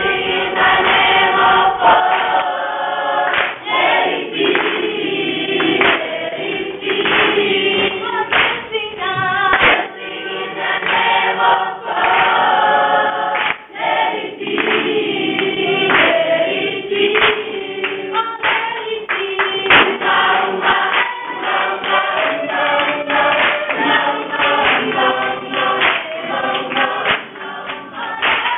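A group of children singing together in chorus, clapping their hands along with the song.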